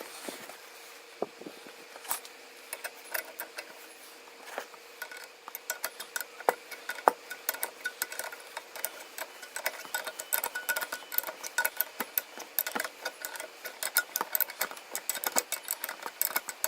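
Small metal clicks and ticks of a spanner working nuts and bolts on a threaded rod, used to spread a swing arm mounting point. The clicks are sparse at first, then come quickly and irregularly from about five seconds in. A faint steady hum runs underneath.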